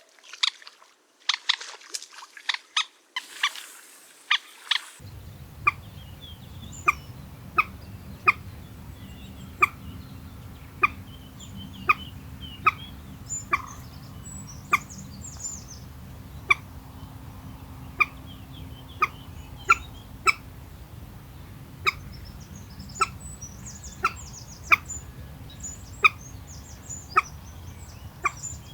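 Common moorhen calling: short, sharp, clipped calls, in quick clusters for the first few seconds, then repeated about once a second over a steady low background rumble. Faint high chirps from small birds sound in the background.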